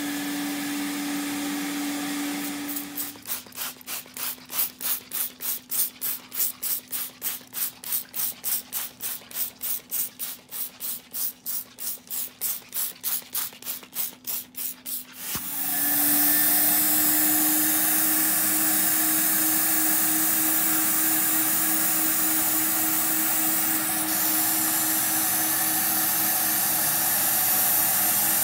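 A carpet extractor's motor hums steadily, then a trigger spray bottle is squirted rapidly, about three squirts a second for some twelve seconds. A little after halfway the extractor's vacuum motor comes up and runs steadily with a loud suction hiss as its upholstery hand tool is drawn over the couch fabric.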